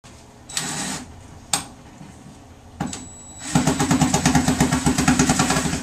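A short rustle and two sharp clicks, then a motor starts up about halfway through and runs with a rapid, even pulsing.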